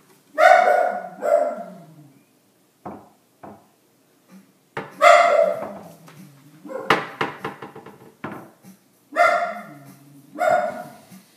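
A dog barking repeatedly, about six loud barks with gaps between them, several coming in pairs.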